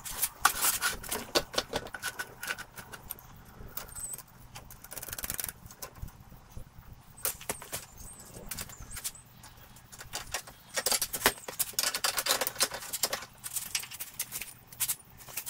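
Hand tools and metal parts being handled: bunches of quick clicks, clinks and rattles with short pauses between them.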